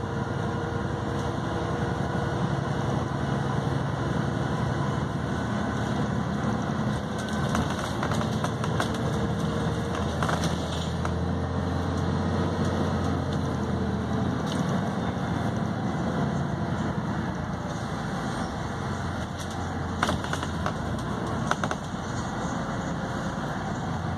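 A Volvo B6BLE bus's diesel engine runs steadily under load, heard from inside the passenger cabin as the bus pulls along a hill road. A few sharp rattles or knocks come from the bus, the loudest about twenty seconds in.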